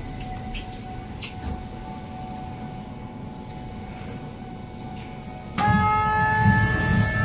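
Subway train stopped at a station, with a faint steady hum. About five and a half seconds in, the doors slide open as a steady, horn-like multi-tone door warning chime sounds, with low thuds from the moving doors.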